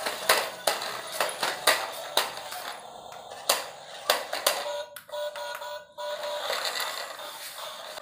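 Small battery-powered remote-control stunt car clattering over a concrete floor, with frequent sharp knocks as its wheels and body tip and hit the ground, over tinny music.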